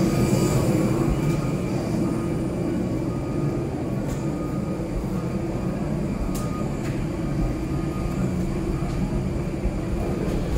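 Steady low mechanical drone with a faint steady hum, as of aircraft and jet bridge air-handling machinery, heard walking from the aircraft door into the jet bridge. A few light clicks stand out in the middle.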